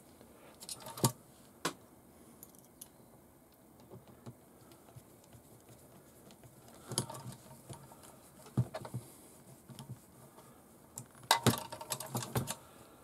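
Light clicks and clinks of a hex driver, small screws and metal parts being handled while a shock absorber is screwed onto an RC crawler's axle: scattered single clicks, with a busier clatter near the end as the chassis is picked up and turned.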